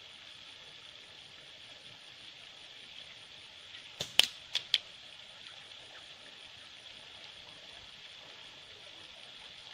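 Slingshot ammunition striking the stones around the target: about four seconds in, a faint tick, then a sharp crack and two lighter clicks following quickly, all within under a second.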